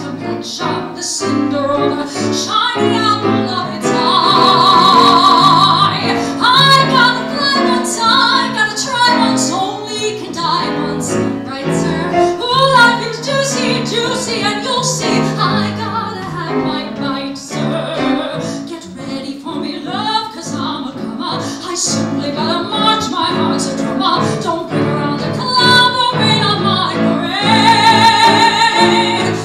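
Woman singing a Broadway show tune in a belting style with live piano accompaniment, holding two long notes with vibrato, one about four seconds in and one near the end.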